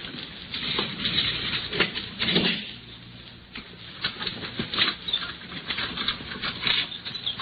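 Radio-drama sound effects: bursts of rustling in the first few seconds, then a run of short sharp taps and clicks, on a narrow-band old broadcast recording.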